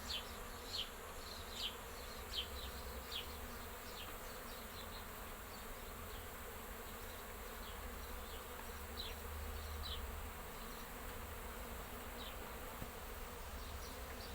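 Many honeybees flying around the hives of an apiary, a steady hum. Short high chirps cut in, several in the first few seconds and a few more later on.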